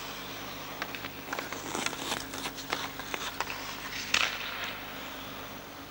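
Ice hockey player skating and handling pucks: skate blades scraping the ice and scattered clicks of stick on puck, with a louder scrape about four seconds in.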